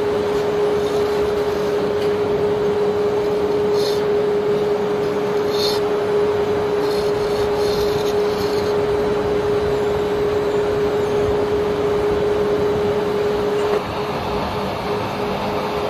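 Steady rushing of wet alluvial sand pouring out through the discharge opening of a barge's cargo hold, over a constant machine hum. There are a few light scraping clicks, and the sound drops slightly near the end.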